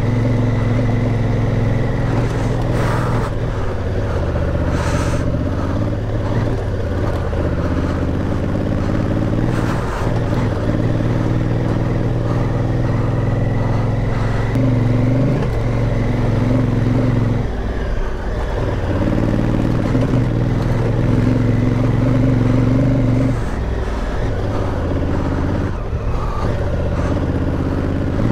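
Honda Africa Twin's parallel-twin engine running on the move, its note holding steady and easing briefly a couple of times as the throttle comes off, under wind rush. A few short knocks come from the ground, about three and five seconds in and again near ten.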